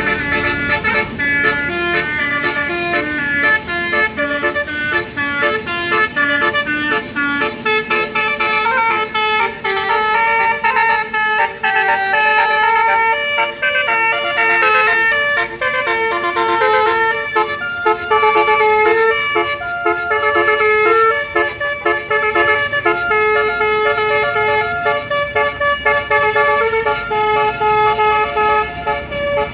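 Indonesian bus 'basuri' telolet horn playing a melody: a string of loud multi-tone horn notes stepping quickly from pitch to pitch.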